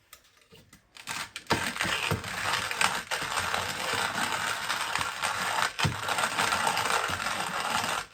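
Hand-cranked CEVING coffee grinder crushing whole coffee beans on its coarsest setting: a few small clicks, then continuous crunching and grinding from about a second and a half in, with occasional harder cracks as beans break.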